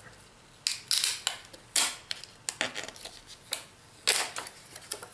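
Light clicks and clatter of small hard laptop drive parts being handled: about a dozen irregular sharp knocks.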